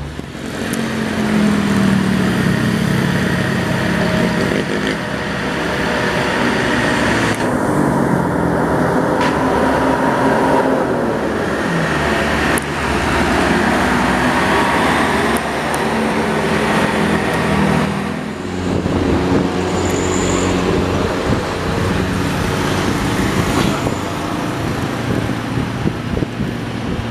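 Heavy diesel engines of a tour bus and box trucks running under load as they climb a hill, with the engine sound changing abruptly at a couple of edits.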